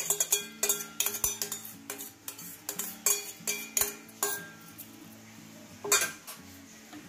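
Metal spatula scraping and clinking against a wok as chicken rendang in thick coconut milk is stirred: quick repeated strokes for about four seconds, then a pause and one more stroke near the end. Faint background music underneath.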